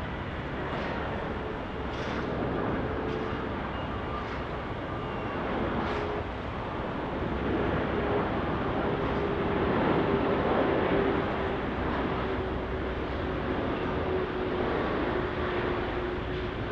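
Jet airliner engines running: a steady rushing noise with a faint hum, swelling a little toward the middle and easing off later.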